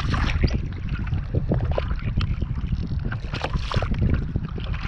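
Wind buffeting the microphone in a steady low rumble, with scattered small knocks and rustles.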